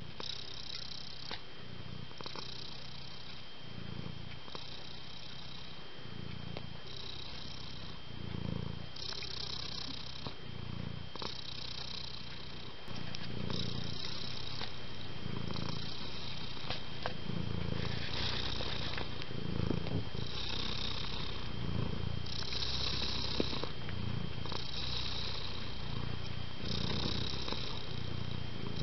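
Domestic cat purring steadily, the purr rising and falling with each breath, about one cycle every second and a half.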